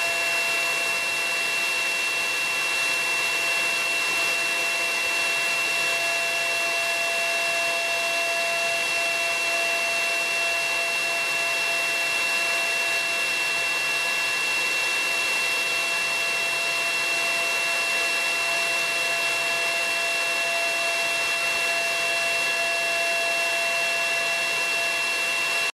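CNC router spindle running at a constant speed: a steady high whine over a hiss, with no change in pitch.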